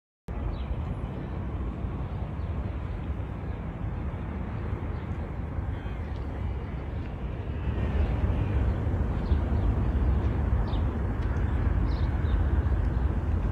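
Wind rumbling and buffeting on a phone microphone outdoors, getting louder about halfway through, with a few faint short high chirps near the end.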